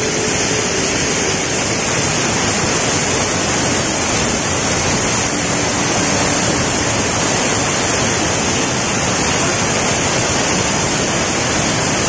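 Waterfall: falling water making a steady, loud, even rush with no breaks.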